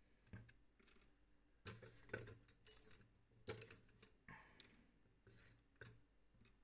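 Small metal weights clinking and tapping against the copper pan of an old pan balance as they are set and shifted by hand: a string of light clicks and clinks, some in quick clusters, as a 32-gram charge is being weighed out.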